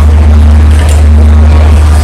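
Loud background music with a deep, sustained bass and a few held notes above it, over faint crowd chatter.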